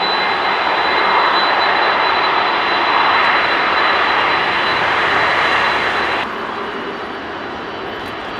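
Airbus A330-300's Rolls-Royce Trent 700 turbofans running loud on the runway for take-off: a dense jet rush with a steady high whine over it. About six seconds in the sound drops suddenly and the whine cuts out.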